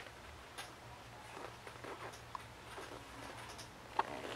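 Faint rustling and light ticks from a two-month-old Maltese puppy moving on a plush bed and mouthing a soft toy, with a sharper click about four seconds in.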